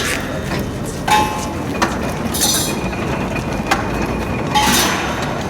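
Irregular knocks and clinks of wood and metal with short squeaks, from the crew handling and refitting the cabin parts of a Nagasaki Kunchi dragon-boat float. A hissy scrape comes about halfway through and another near the end.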